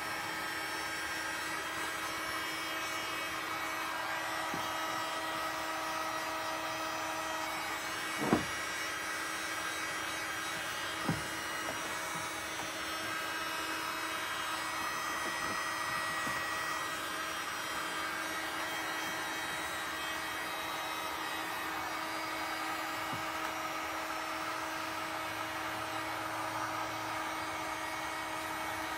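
Handheld electric heat gun running steadily, its fan motor a constant whine, as it blows hot air onto a flattened PVC pipe rib to soften it for bending. A sharp knock sounds about eight seconds in and a lighter one about three seconds later.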